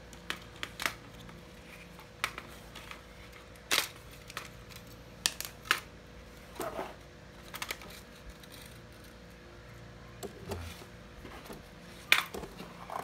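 Light clicks and taps from a telescopic fishing rod being handled and taken apart, its plastic butt cap and rod sections knocking against each other, a dozen or so scattered through the stretch.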